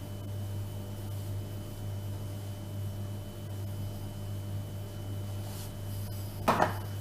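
Steady low electrical hum with a faint hiss: room tone, with a brief hiss near the end.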